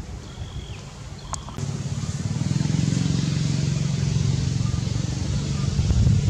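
A motor vehicle engine running with a low, steady drone that comes in about one and a half seconds in, after a couple of faint high chirps.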